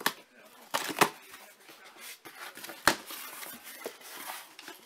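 A cardboard shipping box being opened by hand: three sharp snaps of tape and cardboard flaps giving way, at the start, about a second in and near three seconds, then a rustle of cardboard and plastic wrapping.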